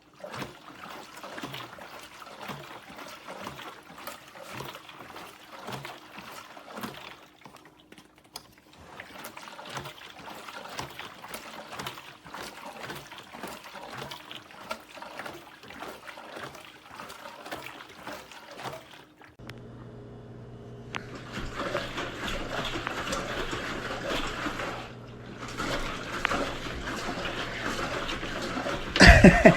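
Wash water draining out of a portable hand-cranked washing machine and splashing, changing about two-thirds of the way through to a louder, steadier rush, with a loud bump just before the end.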